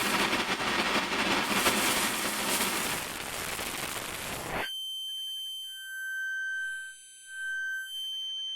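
Synthesized sounds from a custom UVI Falcon software instrument: a dense noise wash that cuts off suddenly about four and a half seconds in, giving way to steady high sine-like tones, with a second, lower tone swelling in and out near the end.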